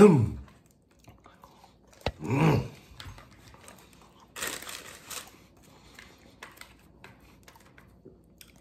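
Food wrapping crinkled and torn by hand, with a short rustling tear about four and a half seconds in among a few small clicks. A brief low vocal sound from the man comes at about two and a half seconds.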